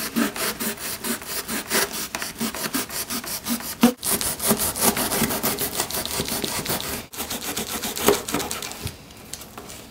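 Sharp knife sawing through a cardboard box with quick back-and-forth strokes, about four or five a second, easing off near the end.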